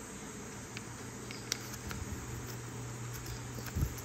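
Plastic blister pack of a small toy figure being handled, with a few faint crinkles and clicks over a steady low hum and hiss.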